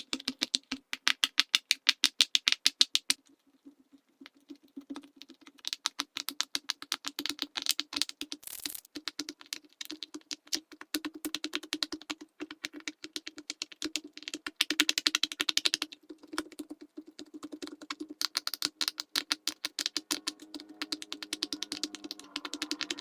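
Silicone pop-it fidget toy bubbles being pressed in quick succession: a rapid run of small pops and clicks, several a second, thinning out for a couple of seconds about three seconds in. A steady low hum sits underneath.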